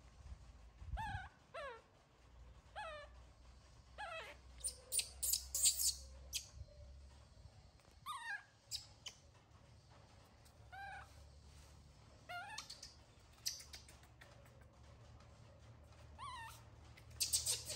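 Baby macaque crying: a string of short, high whimpering calls, each sliding down in pitch, repeated every second or two. Bursts of sharp crackling clicks come in between, loudest in the middle and near the end.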